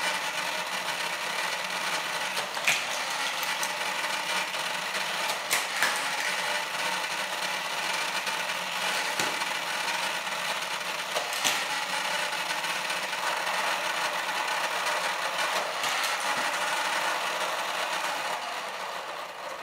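Modified Hot Wheels track booster overdriven at 9 volts, three times its normal 3, from a variable AC-to-DC adapter: its motor and spinning launch wheels whir steadily, with occasional sharp clacks as cars are shot through and strike the plastic track. At this voltage it is way too powerful for the track, throwing cars off. Near the end the whir dies down.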